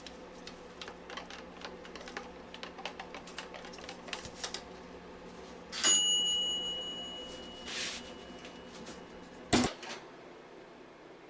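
Small objects being handled on a workbench: light irregular clicking and tapping, then a metal piece set down about six seconds in with a short ringing clink, and a sharp knock near the end. A steady low hum runs underneath.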